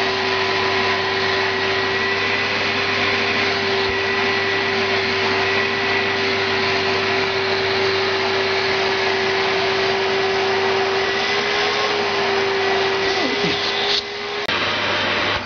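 Hoover Spirit 900 canister vacuum cleaner motor running steadily with a constant whine, its airflow clogged to make the check-bag indicator show. Near the end the sound drops and changes suddenly.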